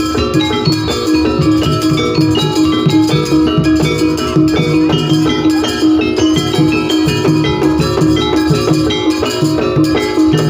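Jaranan pegon music from an East Javanese gamelan ensemble: metallophones and gongs playing quick interlocking notes over a held tone, driven by a steady beat of heavy, bass-boosted drums.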